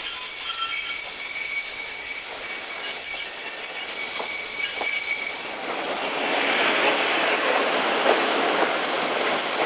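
Passenger train with a steady high-pitched squeal over the noise of the carriage; from about six seconds in, the rumble and clatter of the wheels on the rails grows louder.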